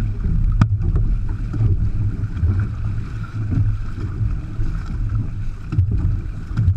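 Wind buffeting the microphone of a hull-mounted camera on a moving six-person outrigger canoe, with water rushing and splashing along the hull as it is paddled. A single sharp knock about half a second in.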